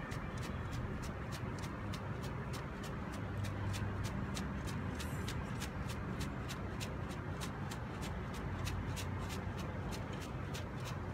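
Hand-held mesh sieve of gym chalk being shaken over a stainless steel bowl: a rhythmic sifting swish about four times a second, over a steady low rumble.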